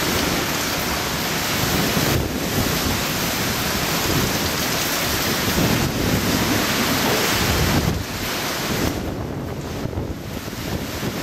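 Typhoon eyewall wind with driving rain: a continuous loud rush in gusts, buffeting the microphone. The gusts ease a little about eight seconds in.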